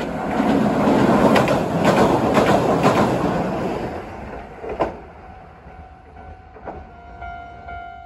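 Hiroshima Electric Railway 3900-series tram passing close, its wheels clacking over rail joints, loud for about four seconds and then fading, with a sharp clank near five seconds. Near the end a level-crossing bell rings about twice a second.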